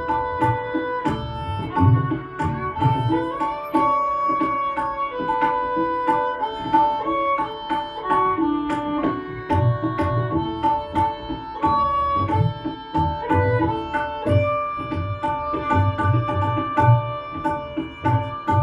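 A tabla solo: quick, dense strokes on the tabla with repeated deep bass strokes from the bayan. A violin plays sustained melody notes underneath as accompaniment.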